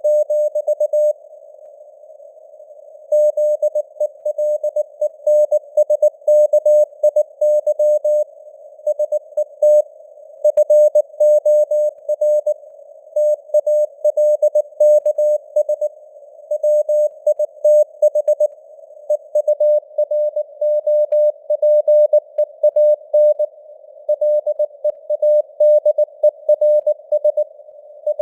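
Morse code (CW) at 19 words per minute: a single tone of about 600 Hz keyed in quick dots and dashes over a narrow band of simulated radio hiss. The keying stops for about two seconds shortly after the start, then runs on without a break.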